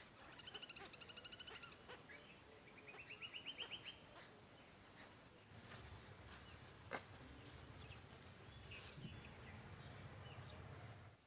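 A bird calling outdoors: a fast chattering trill, then a second trill that rises in pitch, over a faint steady high whine. From about halfway a low rumble sets in, with one sharp click about seven seconds in.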